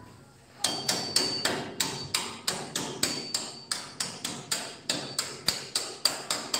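Hand hammer striking a 5/8-inch square steel bar against a cold-bending scroll jig, driving the bar into the jig for the next turn of the scroll. The blows start about half a second in and come steadily, about three to four a second, each with a brief metallic ring.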